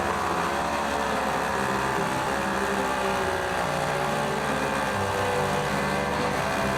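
Background music: held notes over a bass line that changes pitch every second or so.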